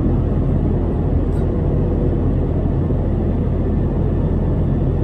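Steady cabin noise of an Airbus A319 airliner in flight: a constant low rumble from the engines and the air rushing past the fuselage.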